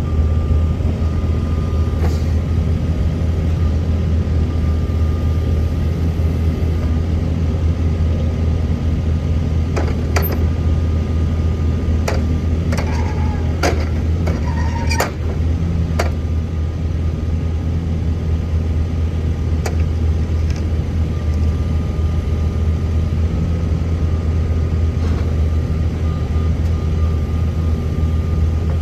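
Wacker Neuson EZ53 mini excavator's diesel engine running steadily, with a few sharp metallic knocks in the middle.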